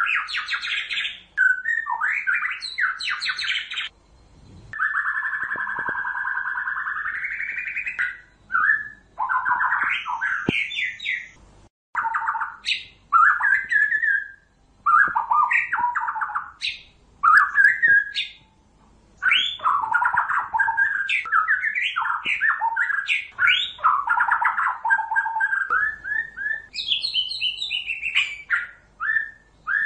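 White-rumped shama singing: varied whistled phrases and rapid notes one after another with brief pauses, including a longer drawn-out phrase about five seconds in.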